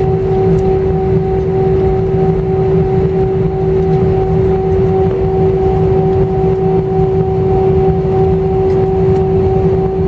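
Cabin noise of an Airbus A318 taxiing, heard inside the cabin: the jet engines at taxi power give a steady low rumble with a constant hum-like tone over it, unchanging throughout.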